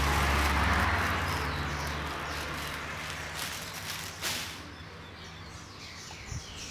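Rustling of a plastic bag with handling noise, loudest in the first two seconds and then fading, followed by a few light knocks and faint bird chirps in the background.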